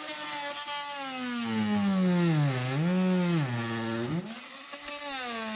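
Oscillating multi-tool cutting behind a timber board: a buzzing motor and blade whose pitch dips and rises again around the middle, where it is loudest, with a brief let-up a little after four seconds before it picks up again.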